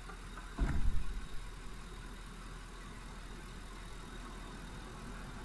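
2009 Ford F-150 pickup engine idling as a steady low hum, with a brief low rumble about a second in.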